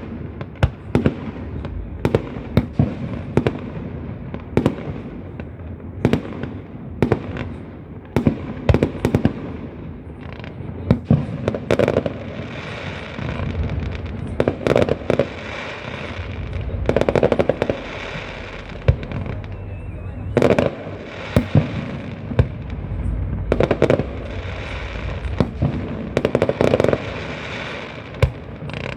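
Fireworks display: repeated sharp bangs of bursting shells, often several in quick succession, with stretches of crackling between them.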